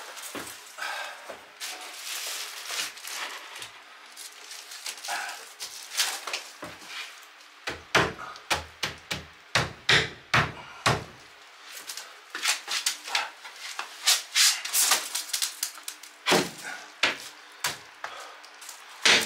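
Plywood wall panel being shoved and knocked into place by hand: rubbing and scraping of wood against the wall at first, then a run of irregular wooden thumps and knocks through the second half.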